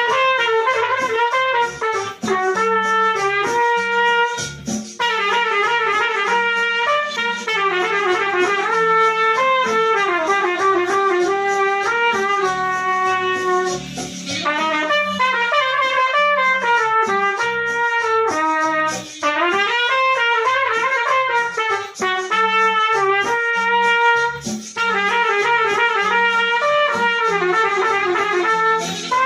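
Trumpet playing a melody phrase by phrase, separate held notes with short breaths between phrases, over a steady low beat.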